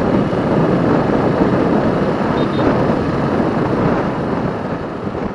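Motorcycle riding at road speed heard through its mounted camera's microphone: a steady rush of wind and road noise that fades out near the end.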